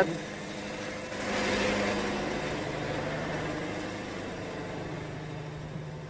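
Wood-Mizer sawmill's engine idling steadily, with a hiss that swells about a second in and slowly fades.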